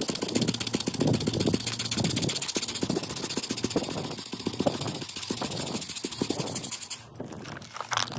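400-grit sandpaper wet sanding a car's painted body panel by hand, rasping in quick back-and-forth strokes; the strokes stop about seven seconds in.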